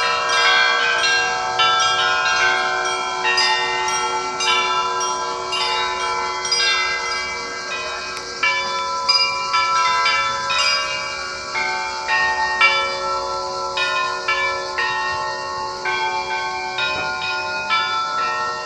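Church bells being rung: several bells struck in quick, uneven succession, several strikes a second, their tones ringing on and overlapping.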